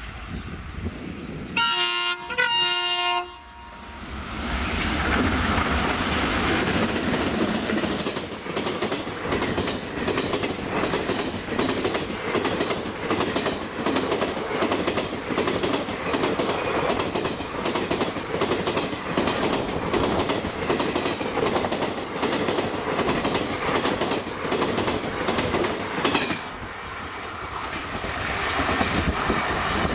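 A twin ALCO diesel–hauled express train (WDM3A and WDG3A locomotives) passing at high speed. The locomotives' multi-tone air horn sounds two blasts, the first longer, then the diesels go by. The coaches follow with a steady, rhythmic clickety-clack of wheels over rail joints that fades as the last coach passes, near the end.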